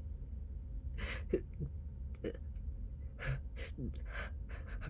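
A person's short gasping, hitching breaths with a few brief voiced catches that fall in pitch, the build-up to a sneeze.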